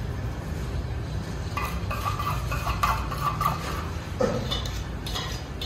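Knives and tomato pieces clinking against a stainless steel bowl while tomatoes are sliced over it: scattered sharp clicks with some brief metallic ringing, over a steady low hum.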